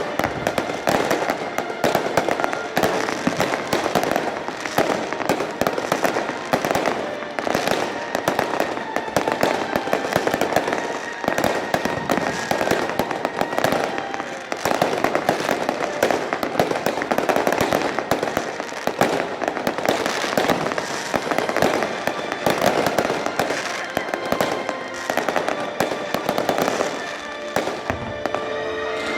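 Fireworks display: a dense, continuous barrage of rapid bangs and crackles with no letup, with music playing underneath.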